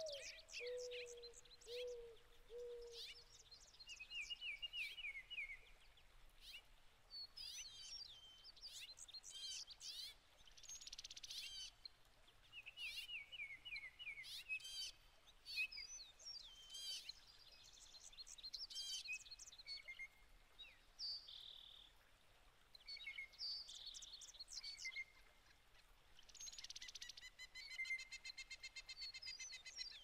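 Several songbirds calling and singing: a steady mix of chirps, whistles and short runs of repeated notes, with a few low whistled notes at the start and a fast rattling trill near the end.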